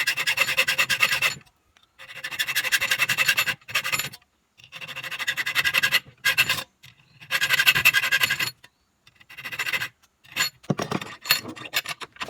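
Hand cutting into the clamp piece with a rasping, scratchy sound: the cuts made on both sides to take the screws. It comes in five runs of a second or two each, with short pauses between them, then a few short separate scrapes near the end.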